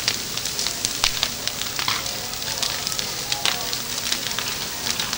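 Large saitō goma bonfire of wooden prayer sticks burning: a steady hiss of flame with frequent sharp crackles and pops from the burning wood.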